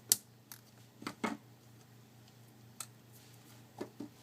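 Small sharp clicks and taps of a repair tool and fingers handling an opened smartphone's internals, about seven in all, irregularly spaced, the loudest just after the start.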